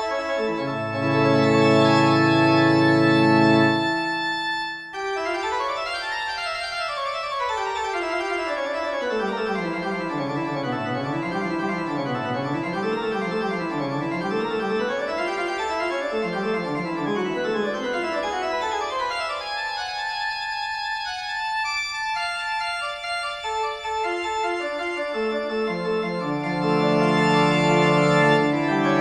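Organ music: held chords, then rapid runs of notes sweeping down and up, and held chords again near the end.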